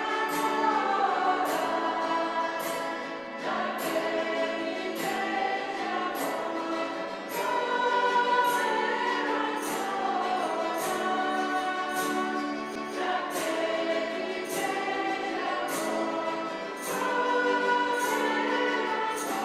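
A choir singing a sacred song, with sustained lower notes under the voices.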